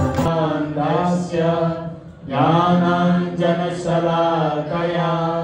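Man chanting a Sanskrit mantra into a microphone, in two long sung phrases with a short break about two seconds in, over a steady low drone.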